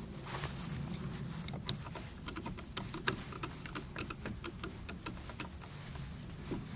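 Irregular small clicks and light taps of a new door latch being handled and screwed into place.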